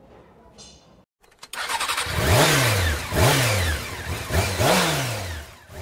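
An engine revved in about four quick blips, each rising and then falling in pitch, starting about one and a half seconds in after a few faint clicks.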